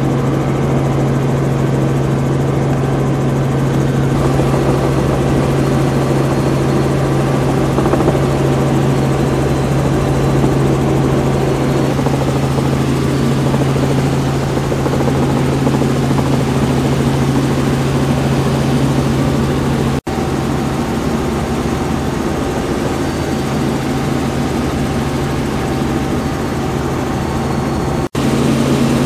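Robinson R44 helicopter in cruise flight, heard from inside the cabin: the steady drone of its six-cylinder Lycoming piston engine and the deep hum of the rotor. The sound cuts out for a split second twice, about 20 seconds in and again near the end.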